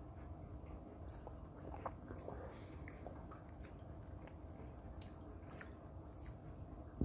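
Faint wet mouth sounds of someone tasting a mouthful of beer: small lip smacks and tongue clicks scattered through the silence.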